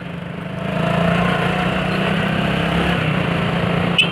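Motorcycle engine running under throttle, getting louder about a second in and holding steady before easing off near the end. A brief high-pitched sound comes right at the close.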